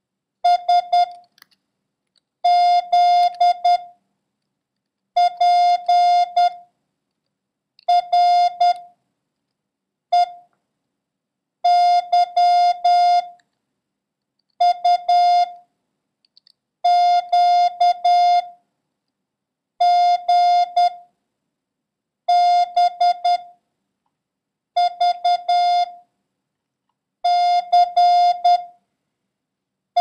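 Morse code sent as a steady beeping tone of about 700 Hz: short and long beeps (dits and dahs) making up one character at a time, with silent gaps of about a second between characters. A copying drill of random letters, numbers and the period.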